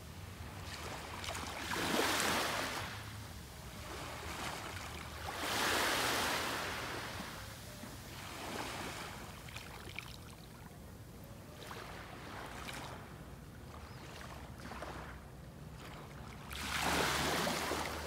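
Small waves lapping onto a sandy beach, each wash a soft rush that swells and fades. The louder washes come about two seconds in, about six seconds in and near the end, with quieter ones between.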